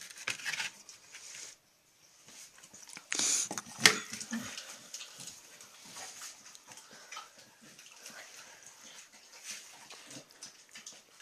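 A dog eating its food: many small clicks and crunches, with a louder burst of noise about three seconds in.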